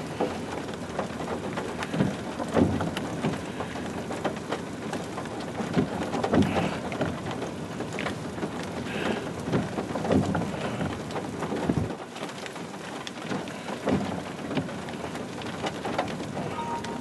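Rain falling steadily, a hiss filled with many separate drop hits.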